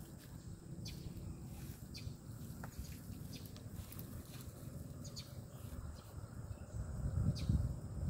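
Scattered short, high bird chirps over a steady low rumble, which grows louder near the end.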